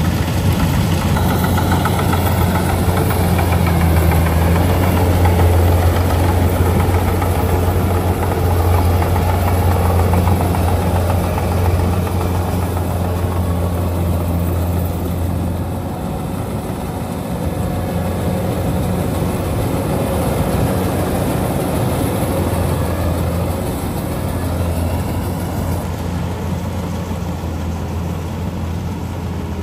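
Rice combine harvester's engine running steadily as it cuts, a loud low hum that eases slightly about halfway through.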